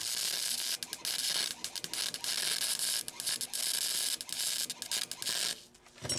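MIG welder arc crackling and sizzling in an irregular run as a bead is laid around a sleeved exhaust-pipe joint. It stops about five and a half seconds in, followed by a single sharp click.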